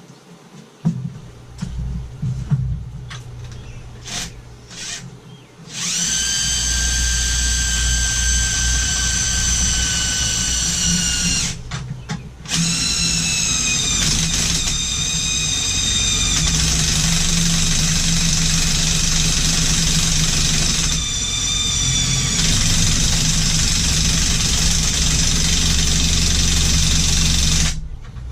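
Electric winch motor whining as it hauls the heavy lathe bed on its strap. It runs in several spells with short stops, its pitch sagging a little under the load, after a few knocks of the strap and steel being handled.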